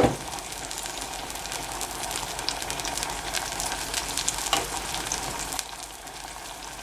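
Spiced tamarind mixture sizzling in a pan on the stove with light crackling, as the sambar base cooks with the sambar powder just added; a single knock right at the start.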